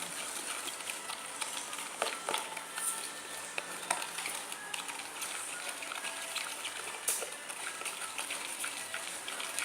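Spoon stirring a mix of slime glue and glow-powder water in a container: a steady run of small clicks and wet scraping.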